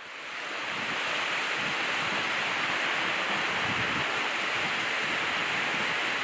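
Steady rushing of a river's current over rocks, fading in over the first second.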